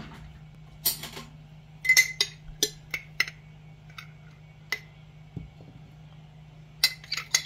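Metal spoon clinking against a glass jar while black olives in oil are scooped out: a dozen or so sharp, ringing clinks in irregular clusters, over a steady low hum.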